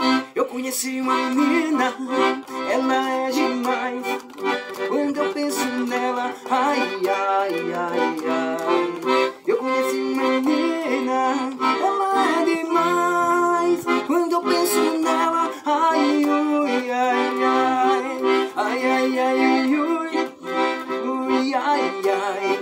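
Piano accordion playing an instrumental passage, a melody of quickly changing notes over sustained chords.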